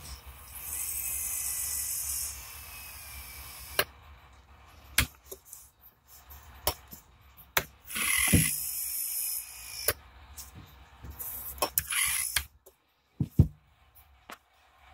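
Healthco dental engine's handpiece motor whirring in three short high-pitched spurts, with the sharp clicks of its rocker switches being flipped between them.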